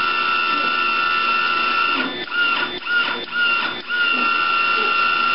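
Lincoln Electric MIG 140 wire-feed motor running with a steady whine while the gun trigger is held, feeding welding wire through the gun. About two seconds in it cuts out and restarts a few times in quick succession, then runs steadily again.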